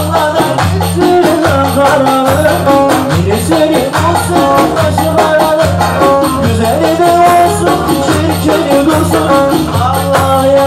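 Loud live Turkish Ankara-style dance music through a PA: a steady driving beat with rattling percussion, and a man singing a melody over it into the microphone.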